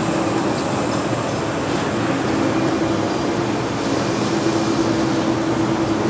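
Steady din of glass-bottle factory machinery running, a dense mechanical noise with a constant low hum through it.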